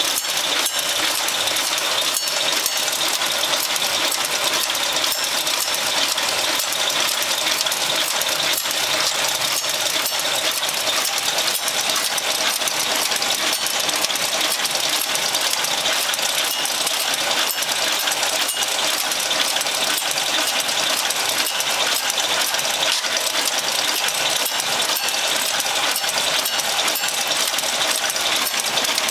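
Automatic incense-stick making machine running: a steady, fast mechanical clatter that goes on without a break.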